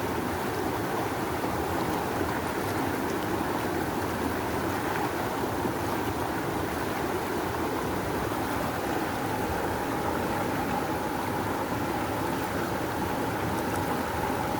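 Rushing river water flowing strongly: a steady, even rush with no breaks.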